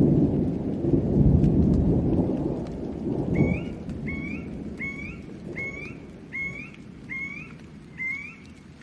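Thunder rumbling through steady rain, loudest in the first three seconds and then fading away. From about three and a half seconds in, a short rising animal call repeats about seven times, roughly once every 0.7 seconds.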